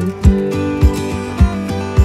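Background music: acoustic guitar over a steady low beat, a little under two beats a second.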